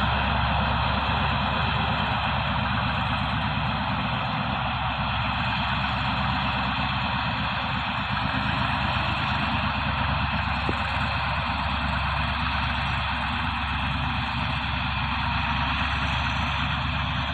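Alsthom 4303 diesel-electric locomotive's engine running steadily as it pulls a passenger train slowly away from the station.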